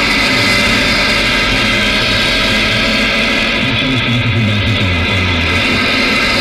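AM radio receiver on 1395 kHz giving only loud, steady buzzing and hissing interference with a shifting low hum: electrical interference from a passing tram has wiped out the broadcast.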